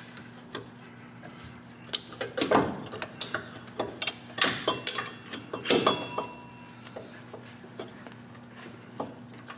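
Light metallic clinks and knocks as a new front shock absorber and its mounting hardware are worked by hand up into the upper mount on a Ford F-150 front suspension, bunched between about two and six and a half seconds in, some with a short ring.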